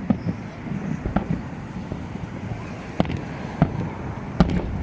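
Fireworks bursting: several sharp bangs at irregular intervals over a continuous low rumble, the loudest about three and about four and a half seconds in.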